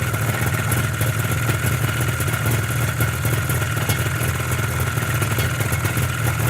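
Stationary motorcycle engine running steadily without revving: a fast, even low burble with a thin steady whine above it.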